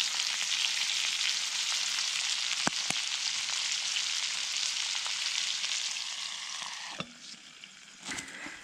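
Vegetables sizzling hard in a hot cast iron skillet over a wood fire. About seven seconds in, a cast iron lid goes on with a clack and the sizzle drops to a quieter, muffled hiss.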